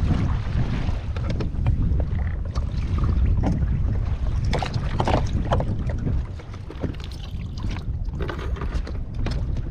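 Wind buffeting the microphone in a gusting rumble, with water sloshing and slapping against a kayak hull and scattered short knocks and clicks of gear.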